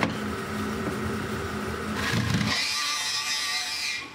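Bandsaw running and cutting through the plastic side of a bucket to take its bottom off. About two and a half seconds in, the sound turns to a higher, hissing rasp, which fades just before the end.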